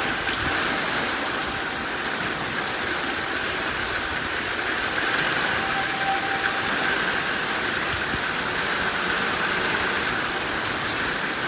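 Heavy rain falling steadily during a thunderstorm. Under it, a distant tornado warning siren holds a steady high tone that slowly swells and fades.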